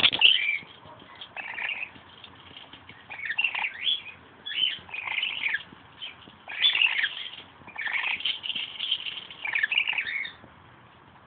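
Olive scaly-breasted lorikeet chattering in short clusters of shrill, chirpy calls, one burst after another, stopping about ten seconds in.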